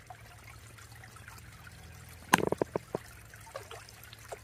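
Water trickling steadily into a garden pond. A little past halfway there is a quick run of short, sharp splashy clicks lasting about half a second.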